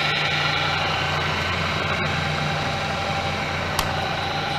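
Bridgeport Series II Special vertical mill with its head running: a steady machine hum from the 2 hp spindle motor and drive, with one sharp click about four seconds in.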